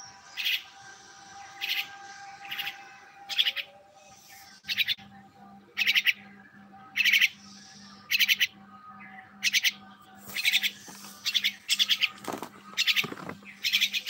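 A myna calling in short, high chirps about once a second, coming faster and in pairs over the last few seconds. A steady low hum joins about five seconds in.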